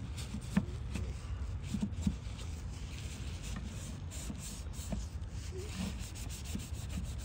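A paper towel rubbing and wiping across the ribbed non-stick plate of a small electric grill, with a few light taps and knocks against the grill now and then, over a low steady rumble.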